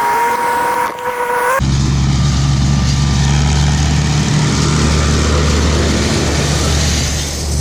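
A high steady whine over machinery noise. About a second and a half in, the sound switches abruptly to a steady low engine drone that runs on.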